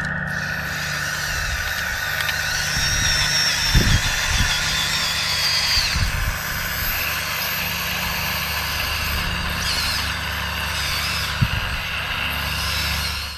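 Electric motors and hydraulic pump of a radio-controlled hydraulic construction model running steadily, with a whine that rises and falls in pitch from about two to six seconds in. A few dull knocks come through, and the sound cuts off suddenly at the end.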